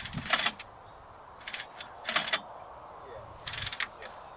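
Recoil pull-starter of a radio-control boat's small gas engine being yanked in several short rasping pulls, with no firing and no running between them: the engine will not start because its flywheel keyway has broken.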